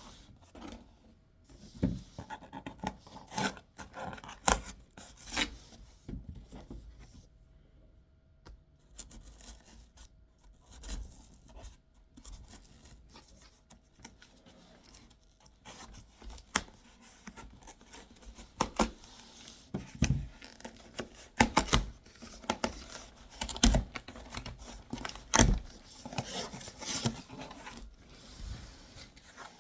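A cardboard shipping box being opened and unpacked by hand: irregular scrapes, rips and knocks of packing tape and cardboard, busier and louder in the second half.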